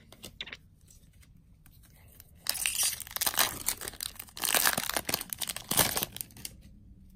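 A Magic: The Gathering foil booster-pack wrapper being torn open and crinkled. The loud crackling tear starts about two and a half seconds in and comes in two stretches, after a few light ticks of handling.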